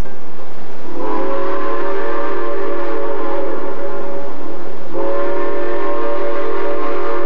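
Steam locomotive's chime whistle blowing two long blasts, a chord of several steady notes, the second starting right after the first breaks off.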